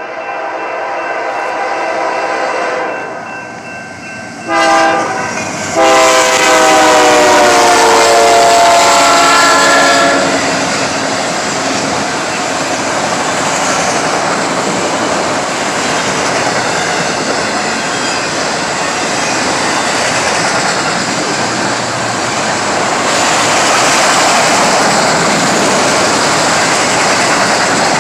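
Freight train horn sounding a long blast, a short one and another long one, the last dropping in pitch as the locomotive passes the crossing. After that, autorack freight cars roll by with a loud, steady noise of wheels on rail.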